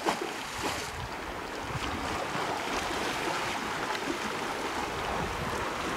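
Steady outdoor rushing of wind and small waves lapping against a rocky shore, with an irregular low rumble of wind on the microphone and a couple of faint knocks in the first second.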